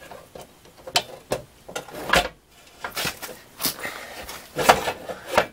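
Manual window regulator's steel arms and gear clanking and scraping against the door's inner frame as it is worked loose, in irregular knocks, the assembly hanging up as it goes.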